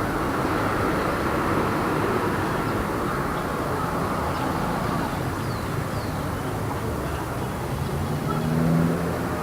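Light city street traffic: a steady rumble of cars passing. An engine hum swells near the end as a vehicle goes by.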